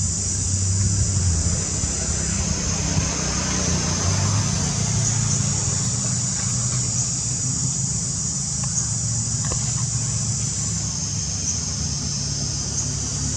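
Steady outdoor background noise: a low, motor-like hum with a constant high-pitched hiss above it.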